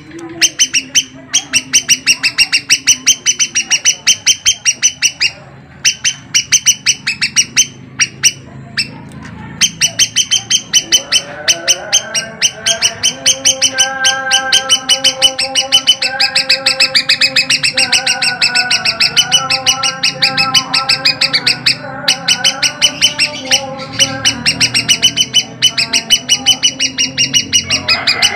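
Cucak kombo, a leafbird, calling in long runs of rapid, evenly repeated high chirping notes, broken by a few short pauses. Through much of the second half a lower, steadier series of tones sounds underneath.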